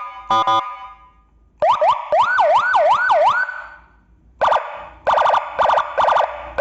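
A Senken 40-watt electronic siren module sounds through its speaker, stepping through its tones. It opens with a few short blasts, then plays a fast rising-and-falling wail for about four cycles, and after a short gap a rapid run of short pulsed blasts.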